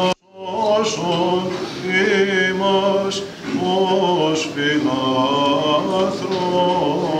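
Byzantine chant sung by male chanters (psaltes), long ornamented phrases with wavering notes. The sound cuts out for a moment just after the start, then the chant resumes.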